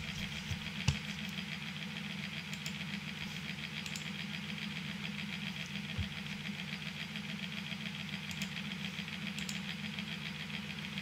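Steady low hum in a small room, broken by a few faint clicks of a computer mouse.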